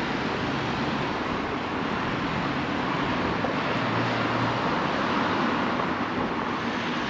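Steady outdoor road-traffic noise, swelling a little midway with a faint engine hum as a vehicle passes.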